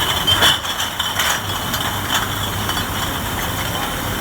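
Bottle washing machine running: a steady machine hum with a high whine, and glass bottles clinking and rattling several times.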